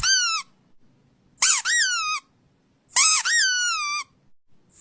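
Squeaky toy squeaking: one squeak at the start, then two quick pairs of squeaks, each rising sharply in pitch and then sliding down.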